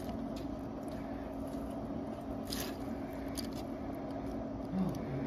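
A steady low hum with a few faint, short clicks and crackles from ice cubes shifting around a thermometer held in a cooler of ice water.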